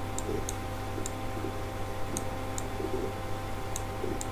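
About seven light, sharp clicks at uneven intervals, over a steady low electrical hum.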